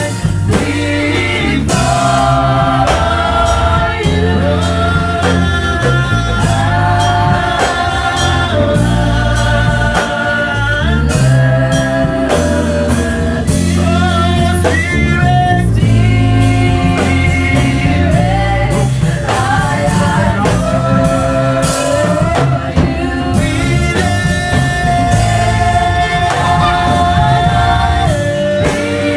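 Worship music: a sung melody over a band, playing without a break.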